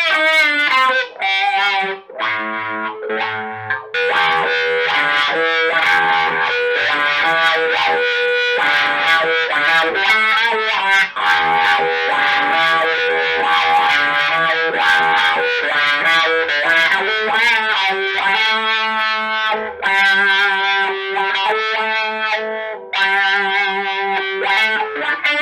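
Electric guitar played through a Moen Jimi Nova univibe-style chorus/vibrato pedal: chords and single-note lines with a wavering, pulsing modulation on the notes and a slightly driven tone.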